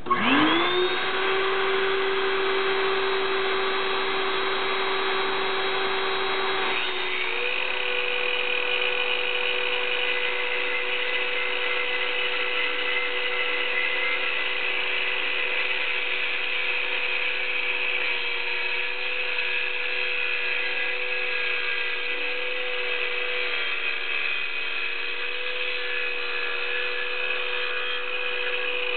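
Electric circular saw with a diamond masonry blade spinning up with a quickly rising whine, then running steadily. About seven seconds in its tone changes as the blade scores a shallow freehand cut into concrete, and it keeps running steadily through the cut.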